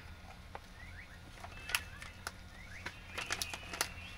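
Hand-cranked plastic meat grinder turning, with scattered sharp clicks and short squeaky chirps from its plastic parts as gummy candy is forced through the grinder plate, over a steady low hum. The clicks bunch together in a quick run near the end.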